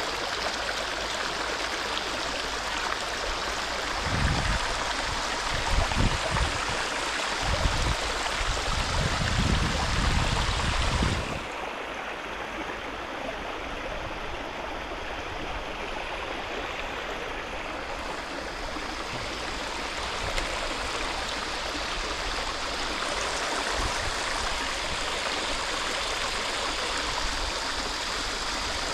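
Steady rushing of flowing river water. From about 4 to 11 seconds in, low rumbling thumps sound on the microphone, the loudest part; after them the rushing is duller for several seconds.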